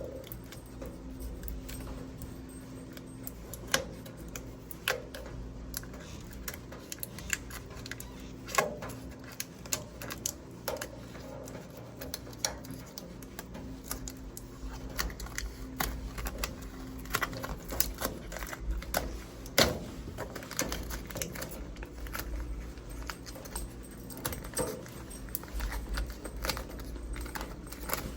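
Irregular small clicks, taps and crackles of fingers and fingernails working blue protective plastic film off a stainless steel microwave oven's casing, with a few sharper clicks among them.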